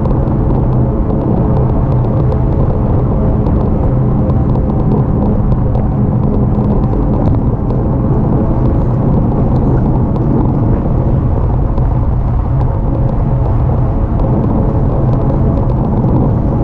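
Steady low rumble of wind buffeting and tyre and road noise on the microphone of a camera riding on a moving e-bike, with a faint steady low hum under it.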